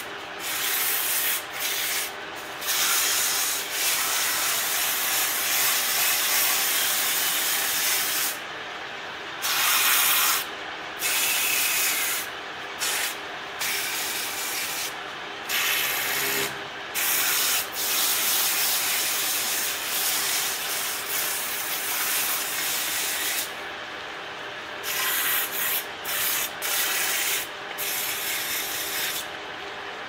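Wood lathe running, with a tool working against the spinning wood: a loud rasping hiss over a steady motor hum. The hiss breaks off many times for a moment and comes back, while the hum goes on.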